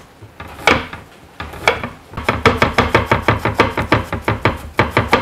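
A kitchen knife chopping on a cutting board. A few separate knocks come first, then from about two seconds in a fast, even run of about six strokes a second.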